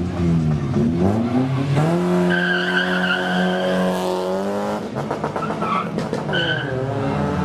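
Drag-race car engines revving, rising and falling in pitch. One is held at high, steady revs for a couple of seconds before dropping off, with a high wavering squeal over it that fits tyres spinning.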